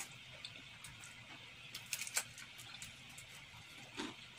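Someone eating noodles with a metal fork from a bowl: a few faint, short clicks of the fork against the bowl, plus soft mouth sounds, with a small cluster of clicks about two seconds in.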